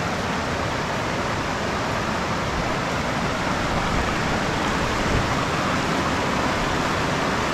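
Shallow, fast river rushing over rocks and boulders: a steady rush of white water.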